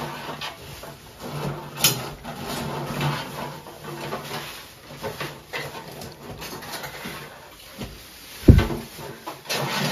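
Metal tongs and a spatula clicking and scraping against stainless-steel fryer trays as fried snacks are lifted out, with one heavy thump about eight and a half seconds in.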